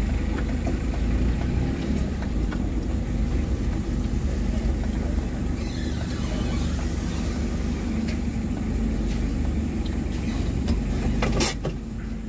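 Mitsubishi L300 van's diesel engine running steadily under way, heard from inside the cab, with a sharp click near the end.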